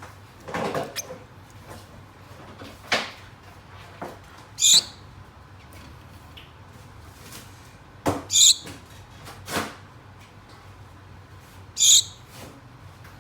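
Gouldian finches calling: three short, high-pitched calls a few seconds apart. Several knocks or taps come between them.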